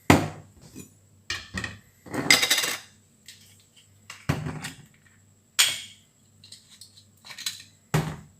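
Kitchen dishes and utensils clinking and knocking, about eight separate knocks, with one longer clatter a little after two seconds in.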